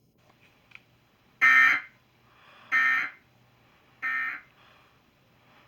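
Emergency Alert System end-of-message data bursts: three short, buzzy digital bursts about a second and a half apart, each quieter than the last, signalling that the alert has ended.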